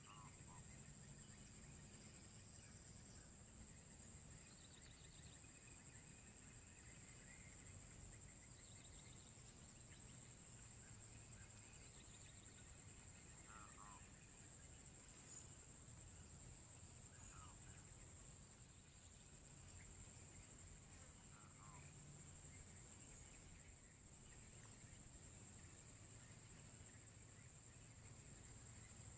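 Steady high-pitched drone of forest insects. Over it, a short falling call from an unseen animal recurs several times, a few seconds apart: the unidentified sound from the forest.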